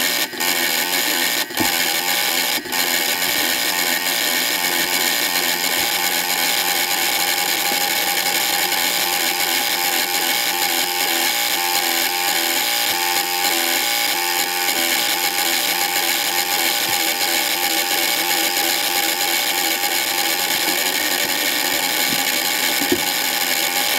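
Relay sequencer running, its relays switched by a 555 timer clock: a steady harsh buzz, with three sharp clicks about a second apart in the first few seconds.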